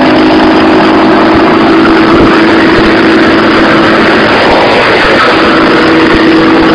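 Gravely 310 chipper running steadily and loudly, its engine and machinery giving an even hum with no change in pitch.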